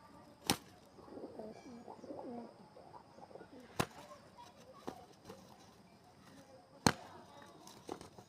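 Pigeons cooing in low, wavering calls for a couple of seconds, about a second in. Three sharp slaps cut through, one near the start, one in the middle and one near the end.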